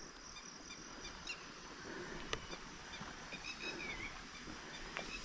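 Quiet outdoor ambience: faint bird calls over a steady high-pitched hum, with a single sharp click a little over two seconds in.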